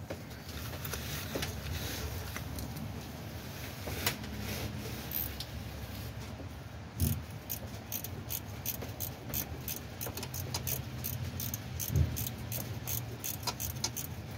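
Hand tools clicking and clinking on metal parts, with a quick run of light clicks, about four a second, in the second half and two duller knocks.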